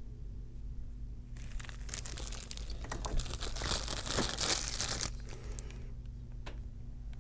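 Crumpled newsprint packing paper rustling and crinkling as it is handled, for about four seconds starting about a second and a half in. A low steady hum runs underneath.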